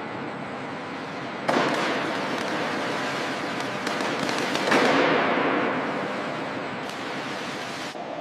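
Welding sparks hissing and crackling. The sound starts sharply about a second and a half in, swells near five seconds, then slowly fades.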